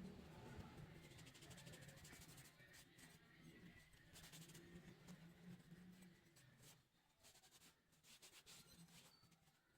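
Faint scratching and rubbing in runs of quick strokes, from hand work on a small model; it grows quieter about seven seconds in.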